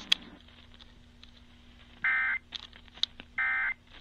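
Two short, buzzy warbling data tone bursts, about a second and a half apart, heard over a radio receiver with a faint steady hum and static. They are the NOAA Weather Radio SAME end-of-message bursts that close an alert broadcast.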